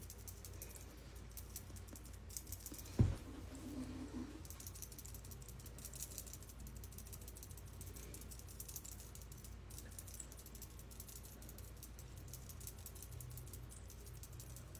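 Makeup sponge patted against the face: faint, quick tapping and clicking, with one dull thump about three seconds in.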